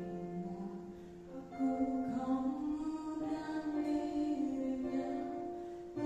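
A girl singing a slow song solo into a microphone, holding long notes, with instrumental accompaniment.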